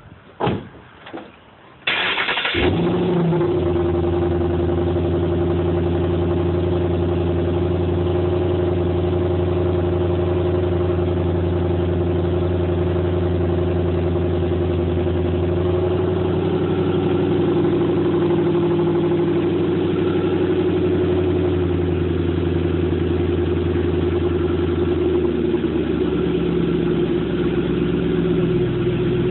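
A 2010 Ford Mustang GT's 4.6-litre V8 with Borla Type S axle-back exhaust, starting about two seconds in with a few clicks before it, then idling steadily. The idle drops slightly in pitch near the end as it settles.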